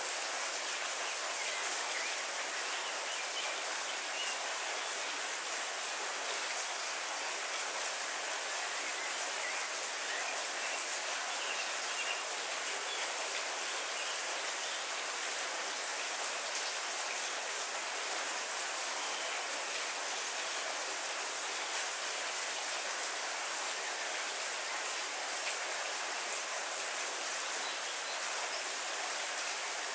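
Steady heavy rain falling, an even unbroken hiss.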